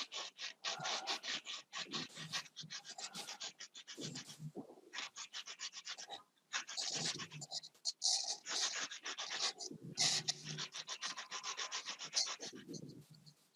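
Pencil graphite being rubbed back and forth on very fine sandpaper to sharpen the tip, a quick run of scratchy strokes at about four or five a second, pausing briefly twice.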